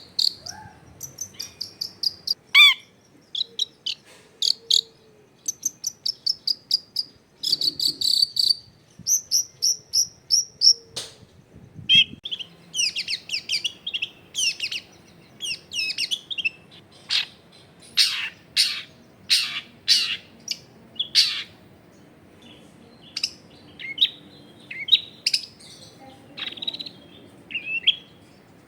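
Long-tailed shrike (cendet) singing a busy, varied song of quick chirps, trills and repeated whistled notes, with a series of about five sharp, falling notes in the middle.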